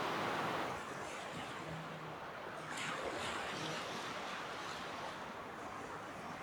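Ocean surf washing on a beach: a steady rush of waves, with a few slightly louder wash-ups about halfway through.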